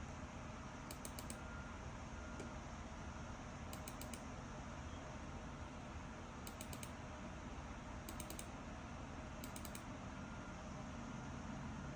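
Computer keyboard keys tapped in five quick runs of three or four clicks each, faint, over a steady background hum.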